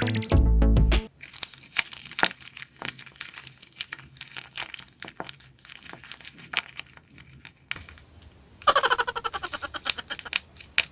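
Paper crinkling and rustling, a string of small irregular crinkles and clicks as handmade paper pieces are handled. A loud musical sound effect cuts off about a second in, and a denser, rattling burst of crinkling comes near the end.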